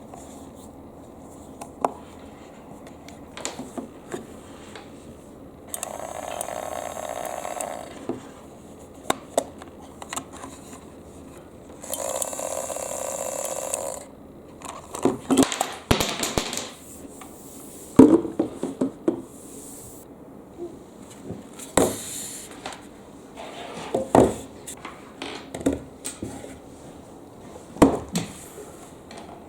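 Glass marbles clicking and knocking as they roll down a wooden zigzag marble run, in irregular clusters of sharp clacks. Twice, about six seconds in and again near the middle, a steady whirring noise runs for about two seconds.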